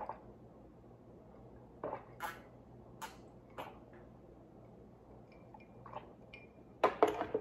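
A person drinking iced tea from a glass: soft scattered swallowing and mouth clicks, then a louder cluster of knocks and clinks from the glass with ice near the end.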